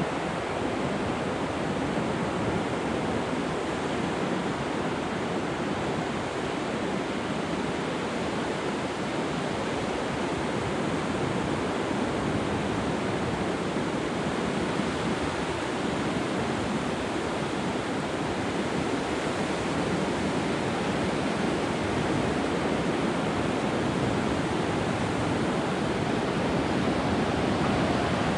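Atlantic surf breaking on a beach: a steady, continuous rush of waves with no single break standing out, getting slightly louder near the end.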